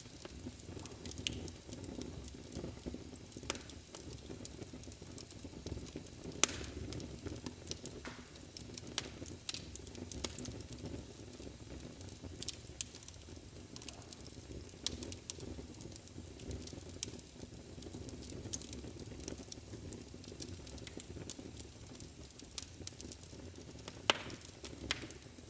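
Wood fire burning in a fireplace: a steady low rumble and hiss of flames with frequent sharp crackles and pops, two of them louder, about six seconds in and near the end.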